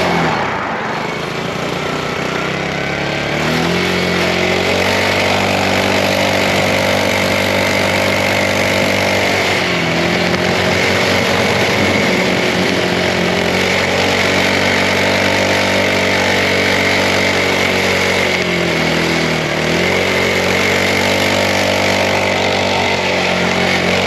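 Mini bike's small single-cylinder engine pulling under throttle. Its pitch climbs a few seconds in and holds steady, sags briefly as the throttle eases about ten seconds in and again a little before twenty seconds, then picks back up, over a steady rush of noise.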